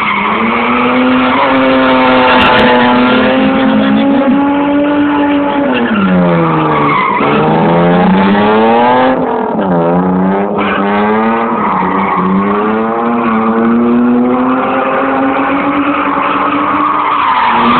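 A drift car's engine is held at high revs, its pitch dropping and climbing back several times as the car slides sideways. The tyres screech continuously under it while they smoke.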